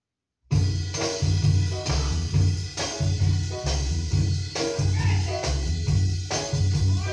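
A 7-inch vinyl single playing on a turntable: music with drums and a heavy bass beat, starting suddenly about half a second in.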